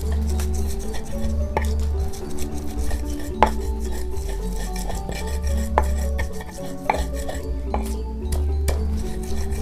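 A stone pestle knocking against a stone mortar (ulekan and cobek) while spices are crushed: a handful of sharp knocks, the loudest about three and a half seconds in. Background music with a steady bass plays throughout.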